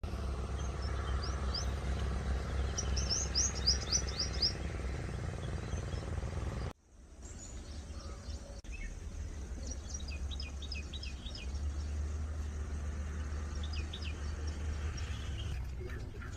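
Wild birds calling in short runs of quick, downward-sweeping chirps, over a steady low rumble.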